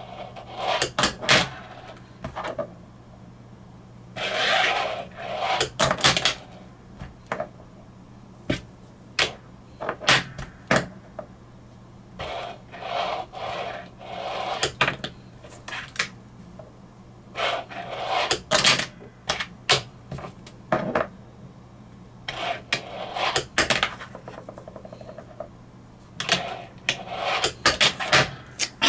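Fingerboard ridden on a desktop: the small wheels roll across the tabletop for about a second, then sharp clacks as the board is popped and lands, repeated over several tricks. A steady low hum runs underneath.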